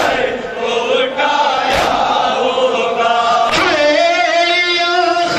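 A group of men chanting a noha, a Shia mourning lament, in unison, with sharp slaps of matam (hands striking chests) about every second and a half.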